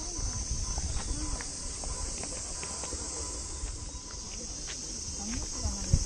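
Steady high-pitched drone of summer insects, with scattered faint clicks and a single thump near the end.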